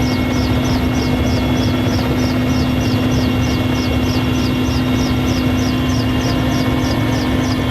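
Firefighting helicopter running steadily, a low rumble with a steady engine tone, over a fast, even high ticking about four times a second.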